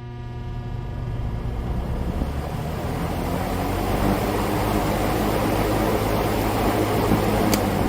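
1983 Lakewood P-58 20-inch box fan starting up: the motor hum and the rush of air from the blades grow louder over the first few seconds as it comes up to speed, then run steadily. A faint tick near the end.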